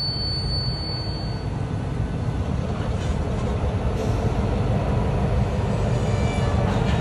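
Diesel switching locomotive and its railcars rumbling low and steady during yard switching, with a few faint clicks.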